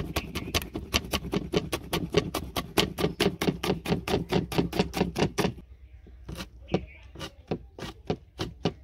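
Kitchen knife finely chopping green chillies on a cutting board: quick, even strokes at about six a second, thinning out to slower, scattered strokes a little past halfway.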